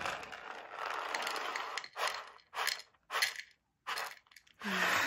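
Dry cat kibble shaken out of its box into a plastic dish: a run of rattling and rustling, then several short spurts of pellets.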